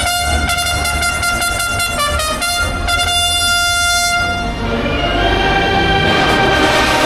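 Music: a long held note with a fast regular pulse, changing to a different, fuller passage about four and a half seconds in.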